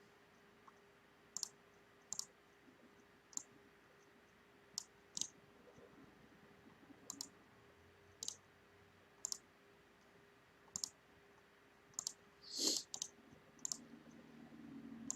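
Faint, irregular computer mouse clicks, about a dozen spread out one at a time, over a faint steady hum.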